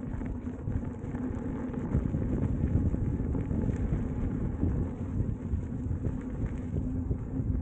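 Inmotion V12 electric unicycle riding along a trail, its tyre rolling with wind rumbling on the selfie-stick camera's microphone, and a steady low hum underneath.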